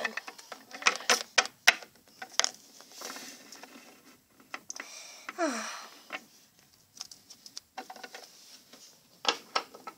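Light clicks and taps of small plastic toy figures being handled and set down on a hard surface, coming in scattered clusters and thickest near the end. About five and a half seconds in, a short falling voice sound.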